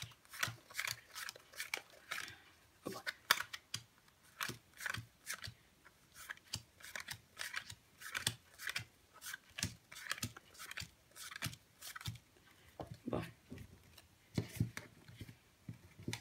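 Paper playing cards being counted off one at a time from hand to hand, each card giving a short snap or slide, irregularly about one or two a second, with the deck being squared near the end.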